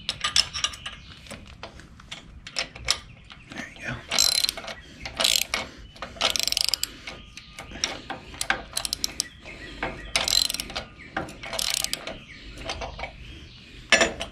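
Socket ratchet wrench clicking in short bursts, about one a second, one on each back-swing of the handle as nuts on a bracket are tightened.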